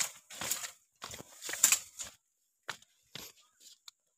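Footsteps on a dry dirt path strewn with dry leaves and grass, about two steps a second, growing fainter near the end.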